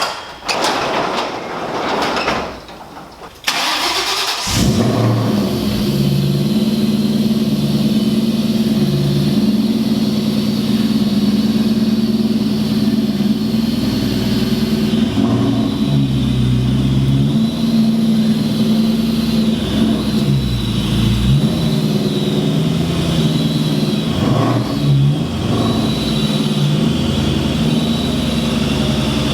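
A car engine starts about four seconds in and then runs steadily, its revs rising and falling a little.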